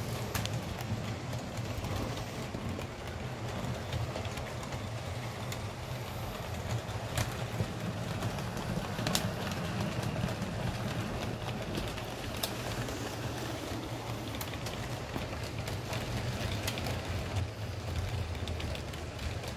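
H0-scale model steam locomotive running along the layout track: a steady low hum from its electric motor and drive, with scattered sharp clicks of the wheels on the rails.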